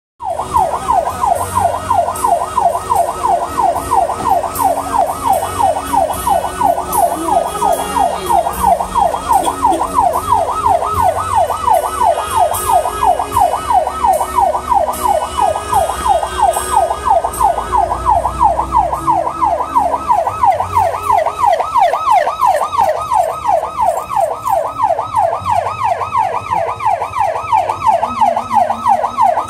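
Electronic siren in a fast yelp, its pitch sweeping up and down about three times a second without a break.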